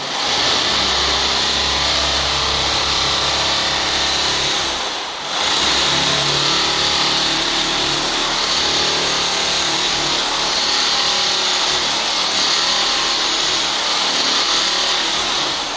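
Metabo hammer drill fitted with a wide flat scraper bit, chipping old carpet glue off a concrete floor; it runs loud and steady, dipping briefly about five seconds in.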